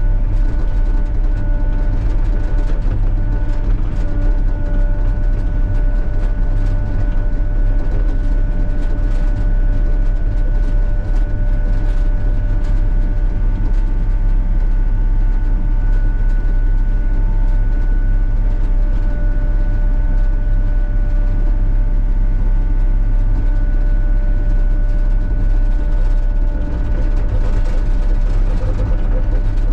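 Sany SY35U mini excavator running steadily while it works, its engine drone carrying several steady high tones, with scattered clicks throughout.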